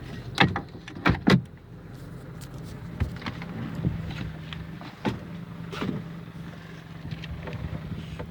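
Parked car's engine idling steadily. Three sharp clicks and knocks come in the first second and a half, then a few lighter ones, as the car door is opened.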